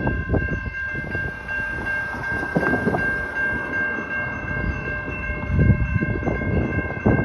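Railroad crossing bell ringing steadily at a grade crossing whose signals are activated, over a low rumbling noise.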